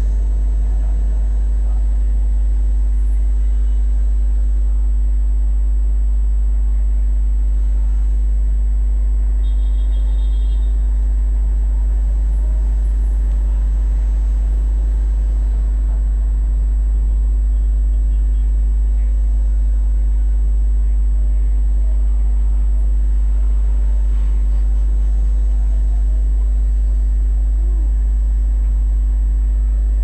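Steady low rumble of urban street traffic at night, even throughout, with a constant low hum over it.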